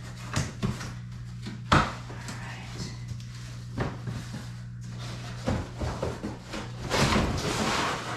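Scattered knocks and clicks of a stapled cardboard box being pulled open, then a longer stretch of cardboard rustling and scraping near the end. A steady low hum underneath stops about seven seconds in.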